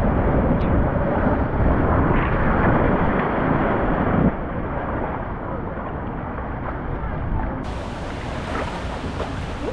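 Water rushing along a tube water slide as an inflatable ride tube runs through it, with wind buffeting the microphone. It is loud for the first four seconds or so, then drops a little.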